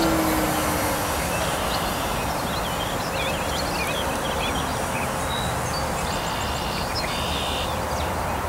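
Electric RC plane's brushless motor and 15x7 propeller whining, the pitch dropping within the first second as it moves away, over a steady rushing noise. Birds chirp in the middle.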